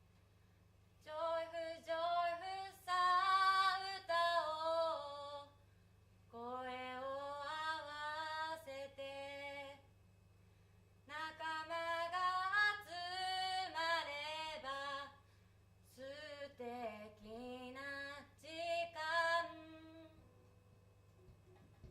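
A woman singing solo and unaccompanied, in four phrases with short pauses between them, over a faint steady low hum.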